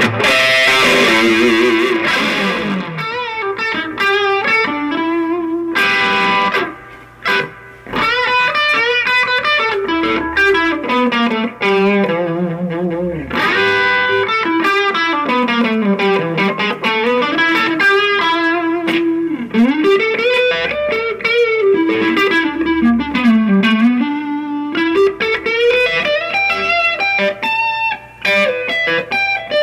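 Distorted electric guitar played through a Shredhead distortion pedal into a cheap amplifier. A chord rings out at the start, then single-note lead lines slide up and down in pitch, with short breaks about seven seconds in and near the end.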